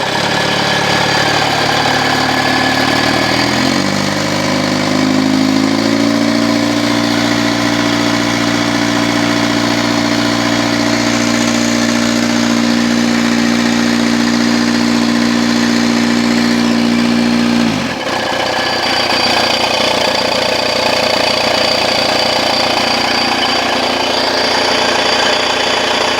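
Audi diesel engine running with a knocking, ringing noise. Its speed rises about four seconds in, holds there, and falls back to idle at about eighteen seconds. The owners have not yet found the cause, only an injector that has come apart.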